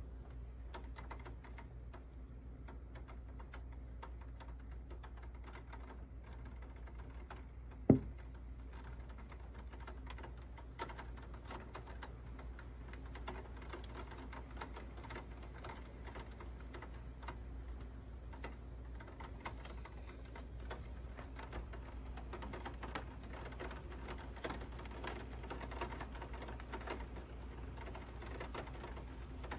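Heavy rain, with drops tapping on a nearby surface as a stream of irregular quick clicks over a steady low background noise. One louder sharp knock comes about eight seconds in.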